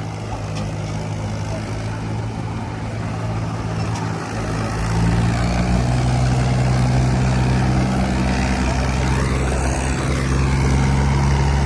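Diesel tractor engine running steadily, rising to a louder, heavier note about five seconds in, as it is revved or put under load.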